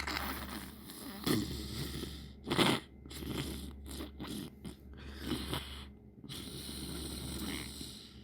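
Wet, gurgly sniffling: a run of short sniffs, the loudest about two and a half seconds in, then a longer drawn-out sniff near the end.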